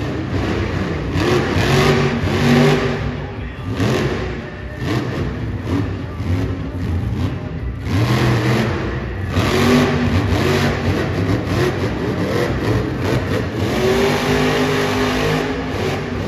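Grave Digger monster truck's supercharged V8 engine revving hard as the truck drives and turns on dirt, its pitch rising and falling in three main surges: at the start, about halfway through and near the end.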